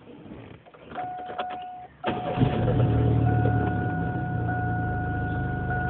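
Car engine starting about two seconds in, then idling steadily with a thin steady whine over the low rumble. A brief thin tone and a few clicks come just before it catches.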